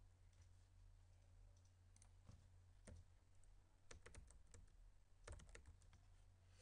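Faint computer keyboard typing: scattered keystrokes, with quicker runs of keys about four and five seconds in.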